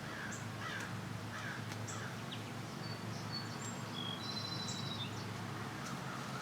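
Birds calling outdoors: a few harsh crow-like caws in the first two seconds, then short high chirps and whistles. All of it sits over a steady low hum.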